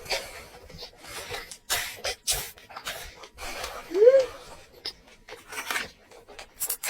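Close-up eating sounds: a string of short, sharp chewing and mouth-smacking noises, with one brief squeak about four seconds in that rises and then falls in pitch.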